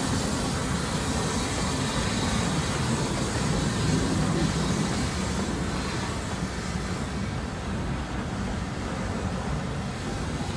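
Heritage railway passenger coaches rolling past close by, a steady rumble of wheels on the rails that slowly eases.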